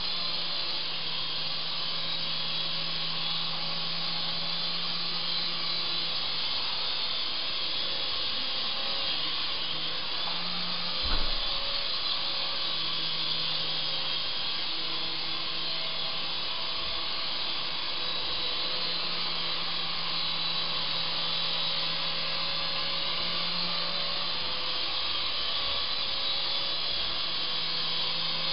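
Syma S109 mini RC helicopter's small electric motor and rotors whining steadily in flight, the pitch wavering slightly as the throttle shifts. A single sharp knock about eleven seconds in.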